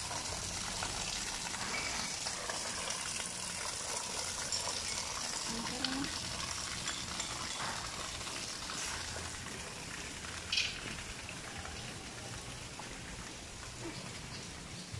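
Water splashing steadily from a small garden waterfall and fountain into a pond, easing a little in the second half, with one brief sharp sound about ten seconds in.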